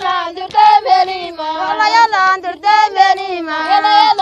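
A high-pitched voice sings a melody of a Toubou song in held, gliding phrases, with little or no low accompaniment under it.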